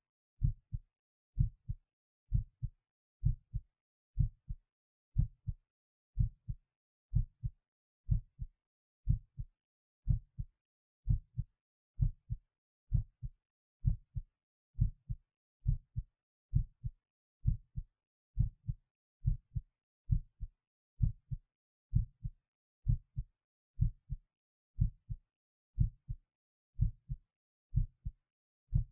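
Human heartbeat recorded at the apex of the heart: a steady lub-dub rhythm of paired low thumps, about one beat a second, with silence between beats.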